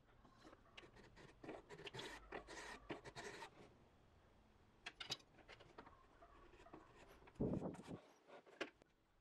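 Quiet scraping, rubbing and light clicking of small wooden pieces being handled in a wooden jig, busiest about two to three and a half seconds in, with one heavier wooden knock near the end.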